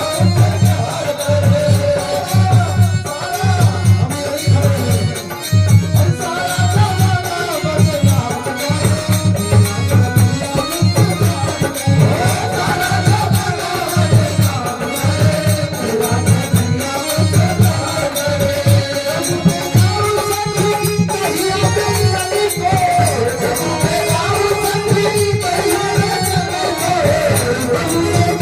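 Indian devotional folk music: a wavering melody line over a steady hand-drum beat with a rattling percussion accompaniment.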